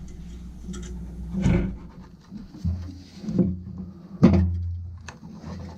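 Hands and tools working inside a gas furnace cabinet while a replacement ceramic hot-surface igniter is fitted: a few sharp metallic knocks and clunks, the loudest about four seconds in, over a steady low hum.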